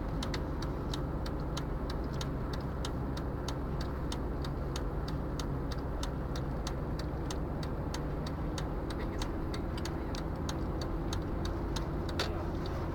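Car's turn-signal indicator ticking steadily, about three clicks a second, over the low rumble of the engine and tyres heard inside the cabin.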